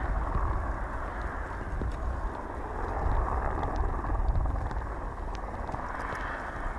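Gusty wind rumbling on the microphone, with faint scattered clicks and crackles from the advancing lava flow front.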